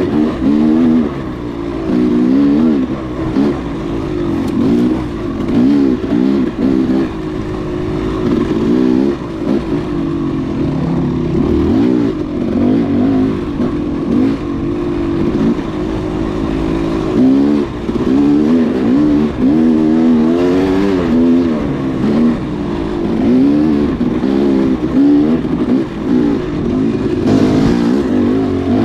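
Dual-sport motorcycle engine running under constantly changing throttle, its pitch rising and falling every second or so as it revs up and backs off.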